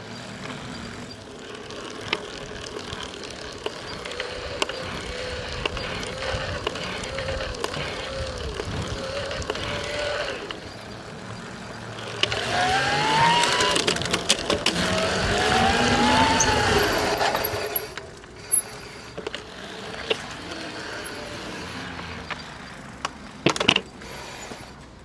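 Shimano EP801 e-bike mid-drive motor running under pedalling, a whine that rises and falls in pitch, with rushing noise that swells in the middle and a few sharp clicks scattered through. The owner describes a cracking/knocking from this motor at one point in each crank turn, linked to growing axial play.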